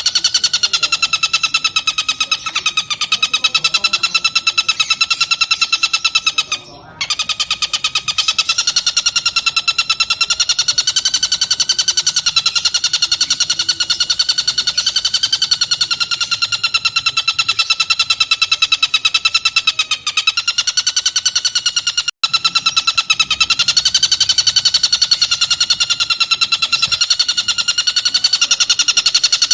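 Tengkek buto kingfisher giving a long, loud, rapid rattling trill of fast even pulses with a nasal ringing tone, running on almost without pause except for a short break about seven seconds in.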